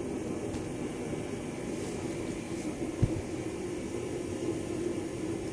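Steady droning background noise with a low hum, and one dull thump about three seconds in.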